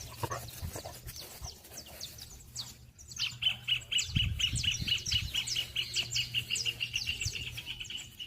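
Several songbirds chirping with short, high, falling notes. About three seconds in, one bird starts a long, fast trill of evenly repeated notes, about seven a second.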